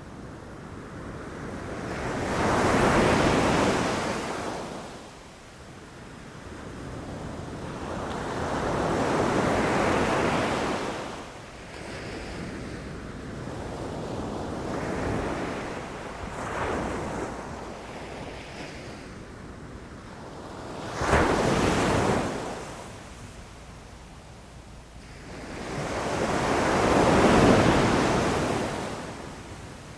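Ocean waves breaking on a beach, each one swelling into a hissing rush and washing away over a few seconds. The largest come at the start, about a third of the way in and near the end. One breaks with a sudden crash about two-thirds of the way through.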